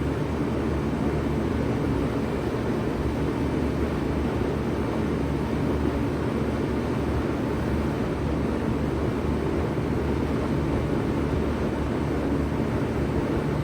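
1996 Bard 3-ton wall-hung heat pump running steadily in cooling mode: a constant compressor hum under the rushing air of its fans.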